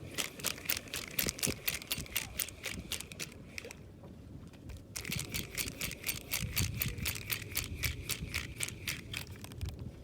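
Fishing reel being wound in, giving rapid, evenly spaced clicking in two spells, with a short pause about four seconds in.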